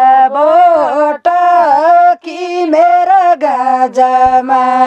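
A woman singing an old far-western Nepali khel bhaka folk melody without accompaniment. She holds long notes with sliding turns in pitch and takes short breaths between phrases.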